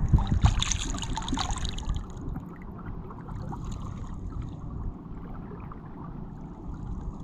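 Shallow seawater splashing and sloshing, busiest in the first two seconds, then a steady low rumble of wind on the microphone.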